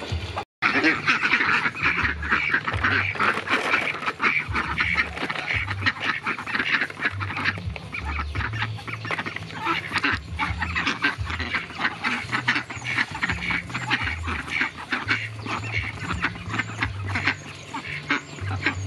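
Domestic ducks quacking while they feed, over a dense, rapid clatter of bills pecking at rice in a plastic tray. The sound drops out briefly about half a second in.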